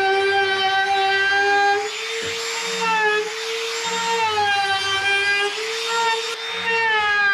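Compact trim router running at high speed as it cuts along the edge of a plywood panel: a steady high whine that sags briefly in pitch a few times as the bit bites into the wood.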